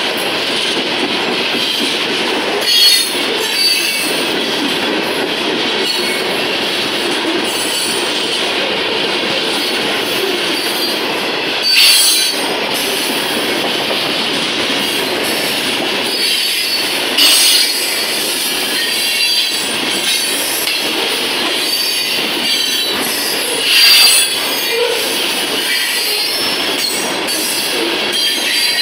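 Loaded freight cars rolling past on steel wheels, a steady rumble and clatter. Every several seconds there is a short, sharp metallic squeal of wheels on the rail.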